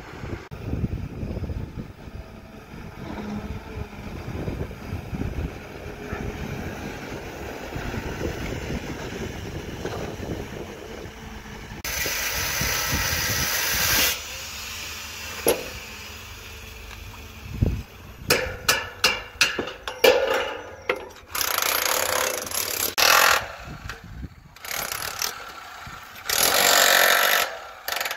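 A Caterpillar excavator's diesel engine runs with a low rumble and occasional knocks. After a cut, a corded handheld power hammer chipping concrete at the foot of timber formwork runs in repeated short bursts, starting and stopping.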